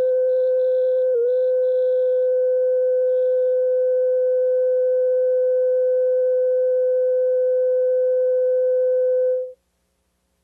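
Steady test tone accompanying color bars, played back from a VHS tape, with a brief dip in pitch about a second in. It cuts off suddenly near the end.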